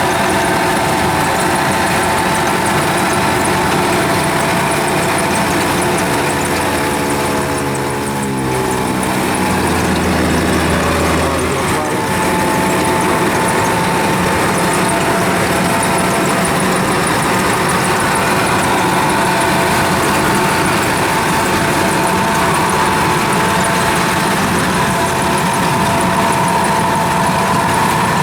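Diesel engine of rice-harvesting farm machinery running steadily. Its revs drop about eight seconds in, stay low for a few seconds, then climb back up around twelve seconds and hold.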